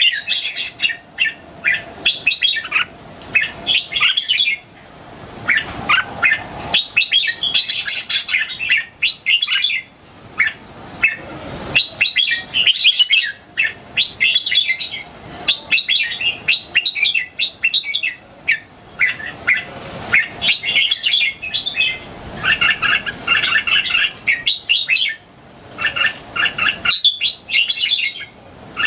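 Young red-whiskered bulbul singing short, bright, warbled phrases, repeated over and over with brief pauses between them.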